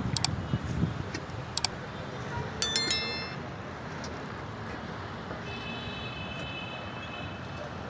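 Construction-site ambience with a steady distant traffic hum. A sharp metallic clink rings out briefly about two and a half seconds in, and a faint high steady tone sounds for about two seconds near the end.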